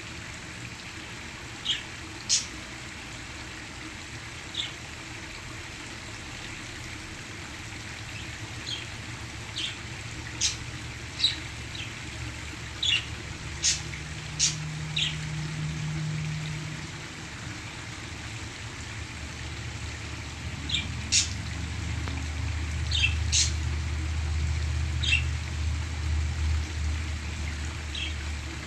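Parakeets giving scattered short, sharp chirps over the steady rush of a waterfall. A low rumble comes in during the second half.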